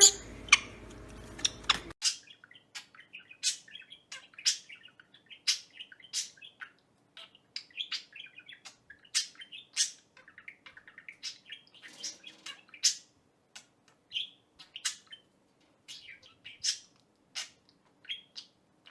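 A pet bird chirping repeatedly: short, sharp, high chirps, one or two a second, with softer twittering in between.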